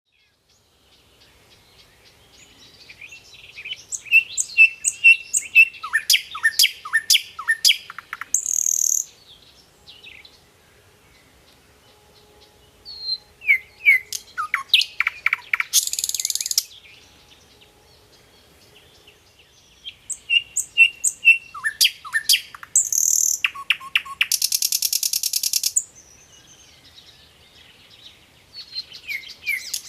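Nightingale singing in separate phrases with pauses of a few seconds between them. Each phrase mixes rapid repeated whistled notes and quick falling notes and ends in a short harsh, buzzy rattle.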